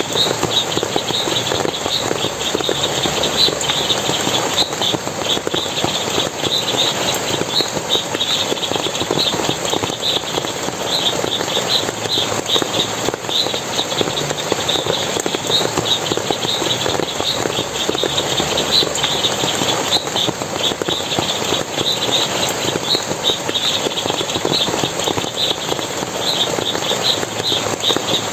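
Water splashing and running steadily, with many short, high chirps repeating irregularly, several a second, over it.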